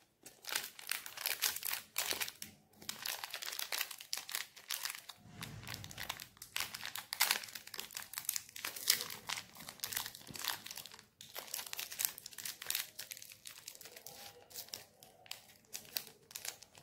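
Crinkly plastic candy wrapper being twisted and peeled open by hand to free a heart-shaped chocolate: a dense run of crackling crinkles with two short pauses.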